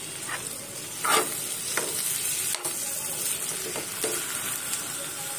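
Metal spoon stirring a bell pepper bhaji in a frying pan, with a few scrapes of the spoon against the pan over a steady sizzle of the vegetables cooking.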